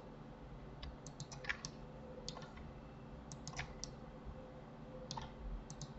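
Computer keyboard and mouse clicking in scattered, irregular little clusters of two to four taps, over a faint steady hum.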